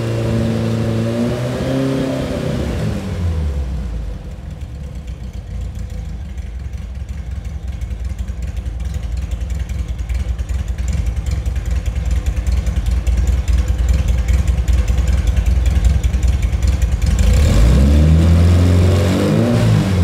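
Air-cooled VW Type 1 flat-four (90.5 x 78.5 mm, about 2 litres, Weber 48 IDA carburetion, W130 camshaft) running through a Sebring-style exhaust. Its revs fall back to idle in the first few seconds, it idles with a steady low pulsing, and near the end it is revved up and let back down.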